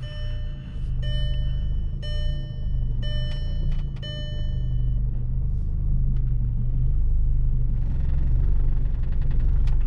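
Manual car's engine running at low revs as it backs up a ramp on the clutch alone, without throttle. An in-car reversing chime beeps about once a second for the first five seconds, then stops.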